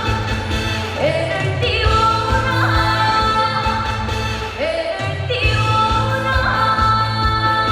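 Female trot singer singing over a backing track, holding long notes and sliding up into them about one second and four and a half seconds in, with a steady bass line underneath.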